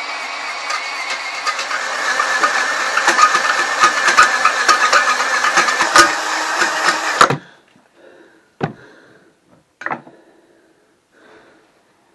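Cordless drill spinning a cylinder hone inside the bore of a cast-iron Buick 3800 V6 block, lightly deglazing the cylinder walls: a loud, steady whir with many fine ticks that stops abruptly about seven seconds in. Two short knocks follow.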